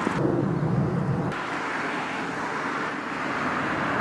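Road traffic: a low, dull rumble for about the first second, then the steady hiss of cars going by on the street.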